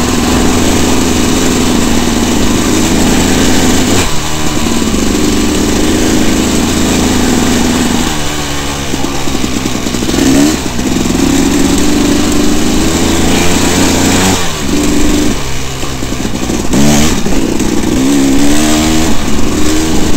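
Dirt bike engine under way, running loud, its pitch dropping and climbing again several times as the throttle is closed and opened.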